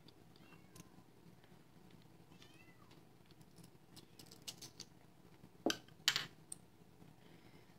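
Small metal clicks and taps from handling the parts of an American Lock 1105 padlock, with two sharp clicks about six seconds in as the loudest sounds. Faint, high squeaky sounds that bend in pitch come twice in the first three seconds.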